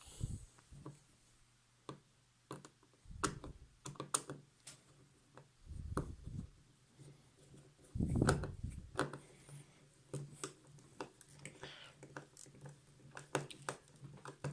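Scattered small clicks and taps of screws and a screwdriver being worked on a small plastic Wi-Fi switch housing, with a few dull bumps; the loudest bump comes about eight seconds in.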